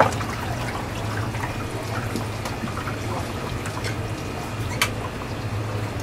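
Water running and dripping onto a wet plastic cutting board while hands rinse and handle raw sea snail meat, over a steady low hum. A sharp knock comes at the very start and another near the end.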